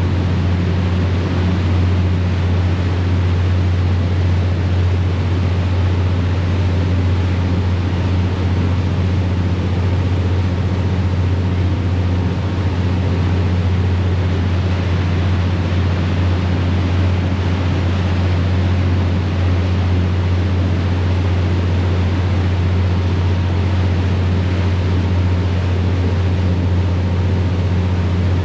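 Ferry's diesel engines droning steadily at cruising speed, a constant low hum, over the rushing wash of the propeller wake behind the stern.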